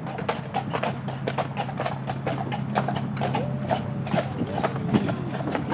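Clydesdale horses' hooves clip-clopping on a paved road as they pull a carriage, a quick uneven run of hoofbeats over a steady low hum.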